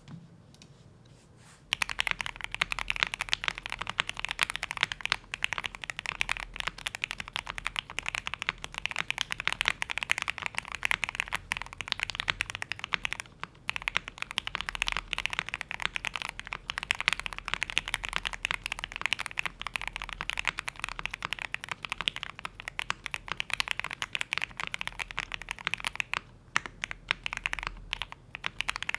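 Continuous fast typing on a custom mechanical keyboard with lubed Gateron Oil King linear switches in a POM plate and ABS keycaps, a dense run of keystroke clacks. It starts about two seconds in, with two brief pauses.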